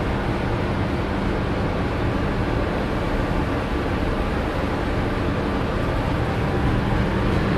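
Steady drone of a container ship's engine room machinery, muffled by the closed engine room door, with a steady low hum throughout. It grows a little louder near the end.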